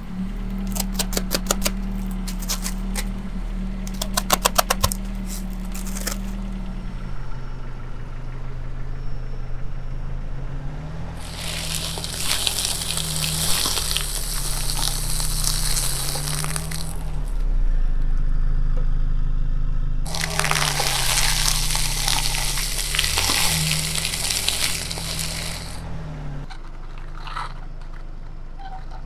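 Aluminium foil and the foil-wrapped objects inside crackling and crunching as a car tyre rolls over and flattens them, in two long stretches of about six seconds each. Quick runs of clicks come in the first few seconds, and a low steady hum sits underneath throughout.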